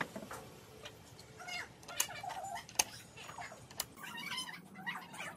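Sharp light clinks of tools and aluminium engine parts being handled on a workbench, a few single knocks with the loudest two about two and three seconds in. Behind them an animal gives short calls that rise and fall in pitch.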